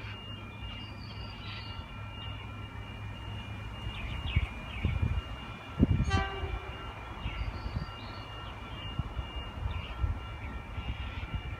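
An approaching Oscar (H-set) electric passenger train gives a short horn toot about six seconds in. Low rumbling bursts, loudest just before the toot, come and go around it.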